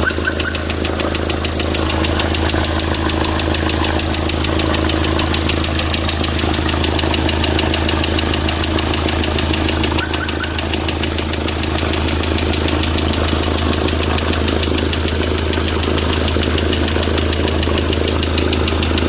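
Hyundai D4CB four-cylinder turbodiesel idling with a steady, rhythmic knock after its rebuild and break-in, which the mechanic takes for crankshaft trouble.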